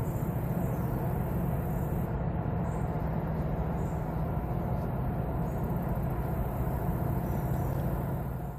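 Steady low drone of a large river towboat's diesel engines pushing a 42-barge tow upstream. The drone fades out at the very end.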